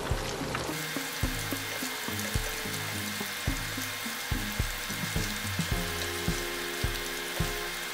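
Hot oil sizzling steadily as corn fritters deep-fry in a wok, mixed with background music that has a steady beat of about two thumps a second.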